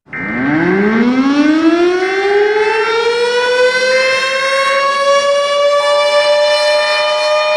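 Civil defense siren winding up from silence: it starts suddenly, climbs steeply in pitch over the first couple of seconds, then levels off into a steady wail. Short steady tones sound over it at times.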